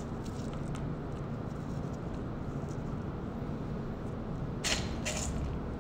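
Two short scuffs near the end as gloved hands press pecan halves onto chocolate brownie batter, over a steady low hum.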